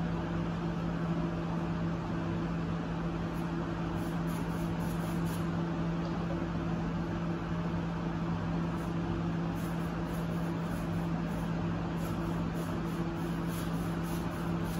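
Steady low electric hum, with a second fainter tone above it, over a soft even hiss, like a room appliance's motor running; it does not change.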